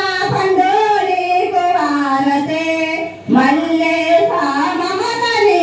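A woman's voice singing a melody in long held notes, pausing briefly about three seconds in.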